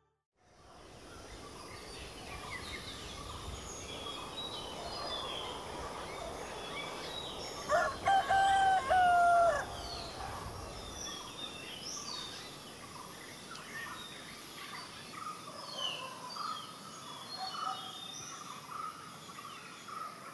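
A rooster crowing once, about eight seconds in: a single cock-a-doodle-doo of nearly two seconds. Small birds chirp throughout.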